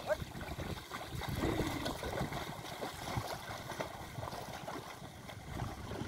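Mud and water sloshing and splashing as a pair of bullocks wade through a flooded paddy field, dragging a leveling board through the mud.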